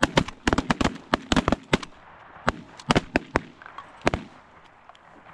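Volley of shotgun blasts from several waterfowl hunters firing together at a passing flock of Canada geese: about twenty sharp, overlapping shots, thickest in the first two seconds, then thinning out to a last pair just after four seconds in.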